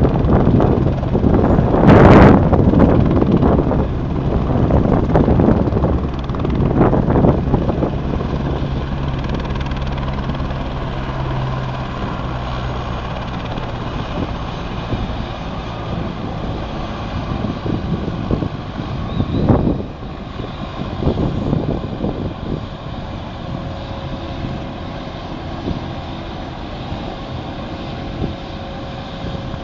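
Helicopter flying with a steady low rotor hum that slowly fades. Gusts of wind noise hit the microphone in the first seconds and again briefly about twenty seconds in.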